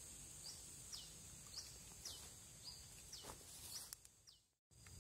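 Outdoor riverside ambience: a steady high insect drone with a bird's short, downward-sliding chirps repeating about twice a second, all faint. The sound drops out completely for a moment near the end.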